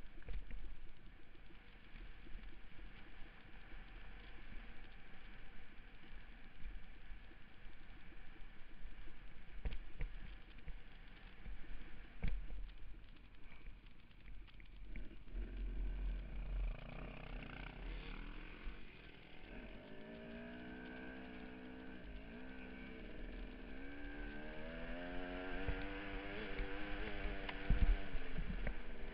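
Off-road motorcycle ridden on a dirt trail: wind rushing over the microphone and knocks from the rough ground through the first half, then the engine note rising and falling as the throttle is worked from about halfway through, loudest near the end.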